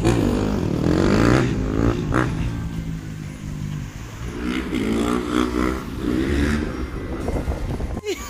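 Road traffic passing close by: two vehicles go past one after another, over a steady low rumble.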